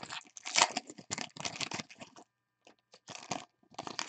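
Foil wrappers of 2020 Panini Legacy football card packs crinkling and tearing as they are handled and ripped open by hand. The rustle is dense for about two seconds, then comes in short scattered bursts.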